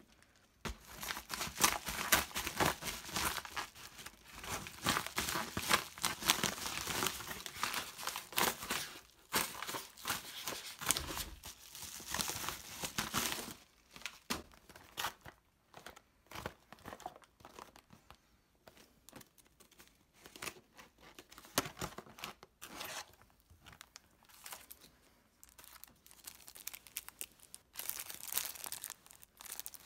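Packaging crinkling and tearing as a yellow Amazon padded mailer is torn open and an LED strip light kit and its remote are unpacked from their wrapping. Busy, continuous crinkling for roughly the first half, then sparser rustles and handling knocks, getting busier again near the end.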